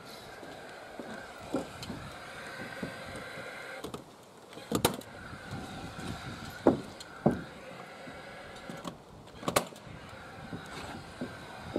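Footsteps on timber scaffold boards with a series of sharp knocks and clacks, the loudest about five seconds in and near nine and a half seconds, over a steady hum.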